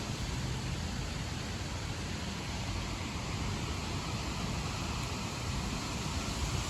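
Steady noise of thunderstorm wind and rain, an even hiss with some low rumble underneath and no distinct claps.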